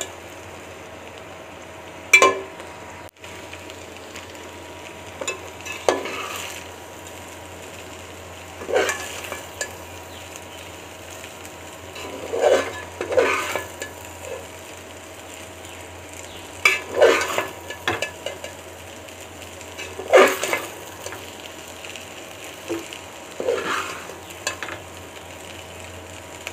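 Boiled rice being stirred into chicken and vegetables in a metal pot: the utensil scrapes and knocks against the pot in short bursts every few seconds, over a steady low hiss from the pot.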